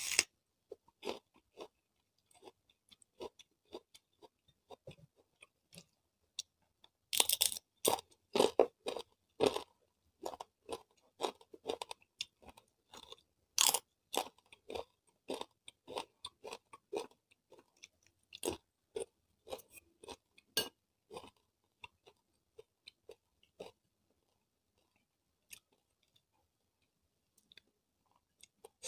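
Close-miked chewing of crunchy food, with crisp crackling bites, densest and loudest about seven to ten seconds in, then thinning to a few faint chews toward the end.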